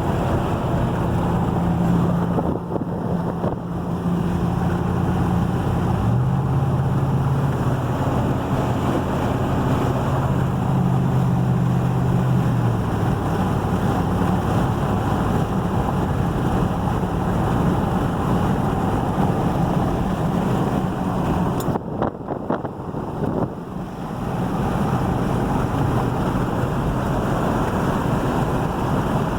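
A moving vehicle heard from inside the cab: the engine runs under a steady hiss of tyres on wet road. The engine note shifts up about six seconds in and eases off near thirteen seconds, and the road noise briefly dips twice.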